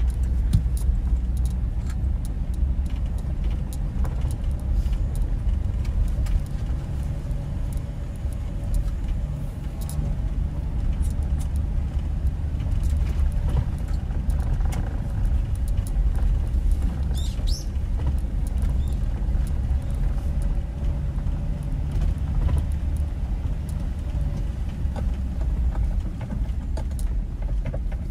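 A car being driven: steady low rumble of engine and road noise with a faint steady hum, scattered small clicks and rattles, and a brief high squeak past the middle.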